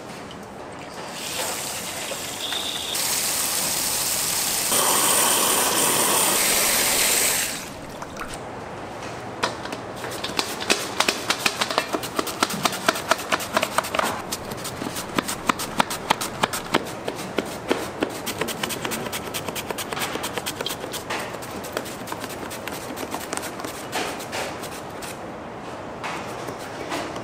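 Water running hard from a tap, turned up in steps and then shut off about seven seconds in, followed by a long stretch of rapid clicking and clattering.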